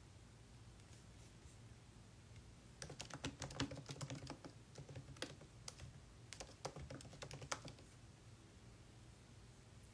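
Faint typing on a laptop keyboard: a quick, uneven run of key clicks starting about three seconds in and stopping around seven and a half seconds, over a steady low hum.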